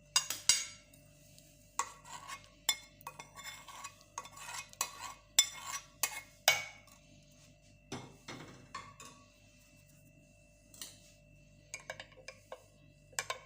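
A pot, spoon and glass clinking and tapping as hot milk is poured and scraped from the pot into a glass: a string of irregular light clinks, some ringing briefly.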